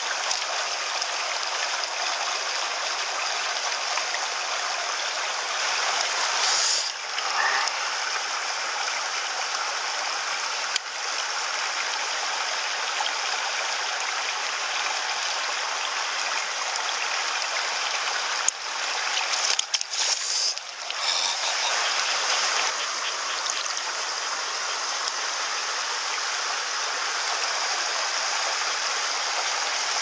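Mountain stream rushing steadily over rocks, with a few brief clicks and knocks partway through.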